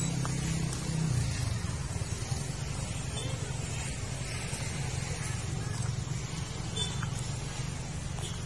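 Steady low rumble of distant road traffic, with an even background hiss.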